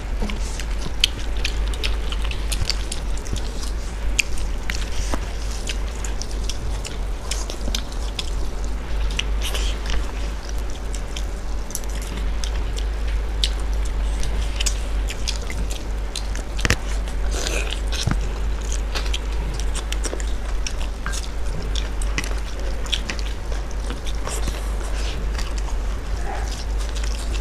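Close-miked eating: two people chewing mouthfuls of rice and chicken curry and working the rice by hand on their plates, with many small clicks throughout. A steady low hum runs underneath.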